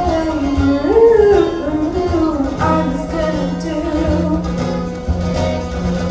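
Live band music led by guitar, a melody line sliding up and down over a steady bass, with a held low note entering about halfway through.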